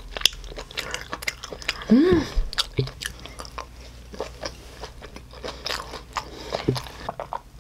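Close-up chewing and biting: a person eating grilled makchang and cream kimchi fried rice, with many irregular wet clicks and crunches. A brief hum about two seconds in.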